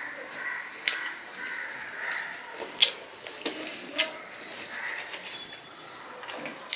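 Wet chewing and mouth smacking of a person eating rice mixed with dal by hand, with a few sharp wet clicks, the loudest about three seconds in.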